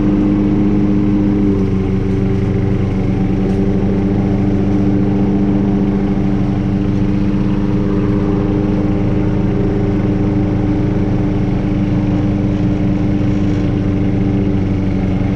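A tractor engine and a wheeled lawnmower engine running together, steady, while the tractor pulls the mounted mower backwards through tall grass; one engine note shifts slightly about a second and a half in.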